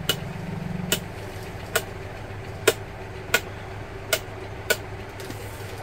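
Rotary speed-regulator knob of a Crompton DS 51 Plus mixer grinder clicking through its switch positions: about seven sharp clicks, each under a second apart, with the motor not running.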